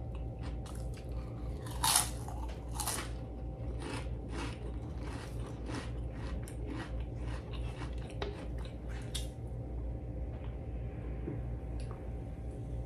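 Close-miked crunching of ridged potato chips being eaten: a loud bite about two seconds in, then rapid crisp crunches of chewing that die down after about nine seconds.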